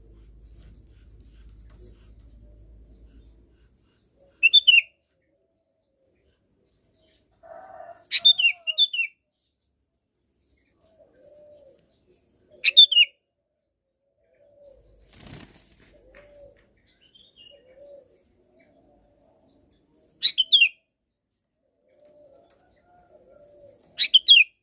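Sooty-headed bulbul calling in five short bursts, each a quick run of falling chirps, with faint lower-pitched short notes in the gaps between them.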